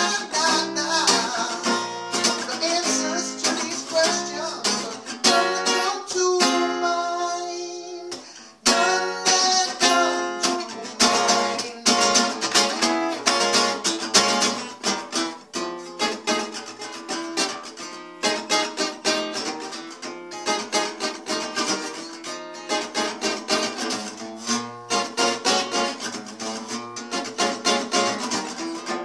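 Acoustic guitar strummed in a brisk, rhythmic pattern, with a man singing over parts of it. About six seconds in, a chord is left ringing for around two seconds, then the strumming picks up again.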